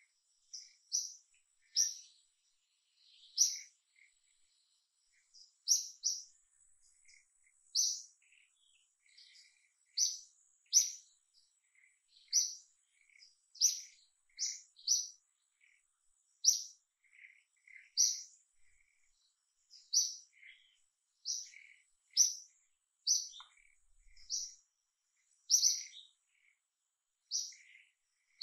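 A bird chirping over and over: short, high chirps, about one a second, with a faint steady high tone underneath.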